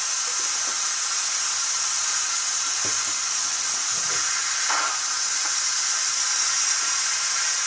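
Sofrito of peppers, onion, garlic and tomato sauce sizzling steadily as it fries in oil in a pot over high heat.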